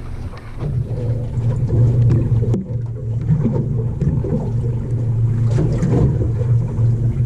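Boat engine running with a steady low drone, mixed with the wash of water and wind.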